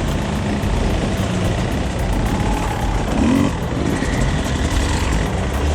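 Enduro motorcycle engine running steadily at low revs while riding.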